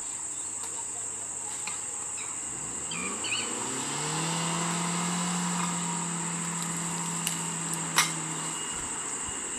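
Insects buzzing steadily in a high tone throughout. About two and a half seconds in, a car engine rises in pitch and then holds steady as the car pulls away, dying away shortly after a sharp click about eight seconds in.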